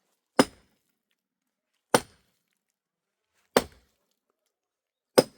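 Four sharp chopping blows into wood, about one every second and a half, each a single hard strike that dies away quickly.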